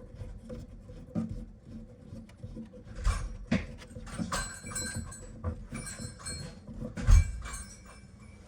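Parts and tools being handled and rummaged through: irregular clattering knocks and rustling, with a brief metallic jingle in the middle and one heavy thump about seven seconds in.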